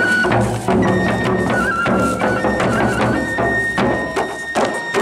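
Gendang beleq ensemble playing: large double-headed barrel drums are beaten in a busy rhythm while a suling bamboo flute holds long, high notes, stepping up in pitch about three seconds in.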